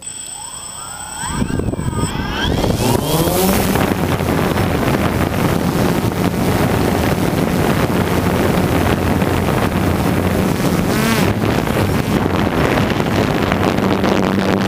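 A drone's electric motors and propellers spinning up from rest, rising in pitch over the first few seconds, then running at a steady loud buzz as it lifts off and flies, heard from on board the drone.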